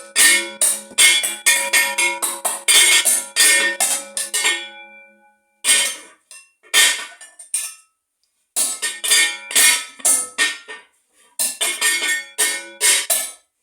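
Several bells struck in quick, uneven succession, each strike ringing on at its own pitch so the tones overlap. The ringing dies away about five seconds in. It picks up again briefly, stops for about a second near the eight-second mark, then starts again.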